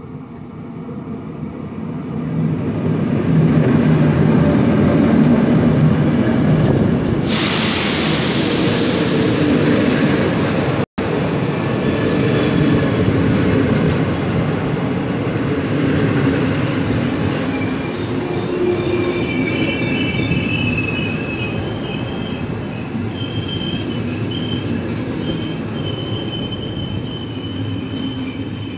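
Electric locomotive and passenger coaches running past close by, with a heavy rumble of wheels on the rails that builds over the first few seconds. A loud hissing rush comes as the locomotive passes. In the second half, high steady squeals come from the wheels and brakes.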